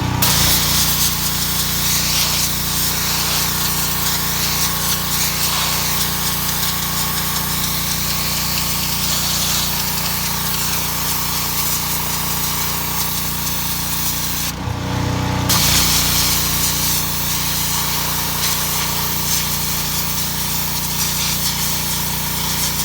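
Engine-driven pressure washer running, its high-pressure water jet hissing against brick to strip moss and algae. The spray cuts out for about a second about two-thirds through, then starts again over the steady engine hum.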